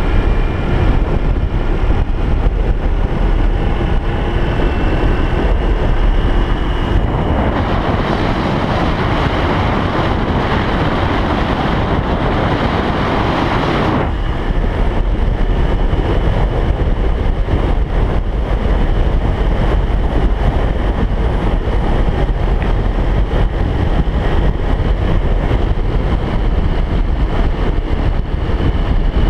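Engine of a moving vehicle running steadily under way, with wind rushing over the microphone; the rush grows louder from about 7 s in and drops back suddenly at about 14 s.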